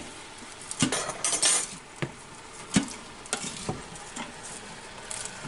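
A utensil stirring food in a cooking pan, knocking and scraping against the pan with sharp clicks about once or twice a second, thinning out in the second half.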